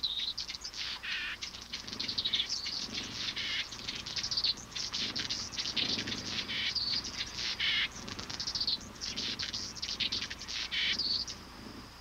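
Hummingbirds chattering: quick, high-pitched chirps and buzzy twitters, one after another.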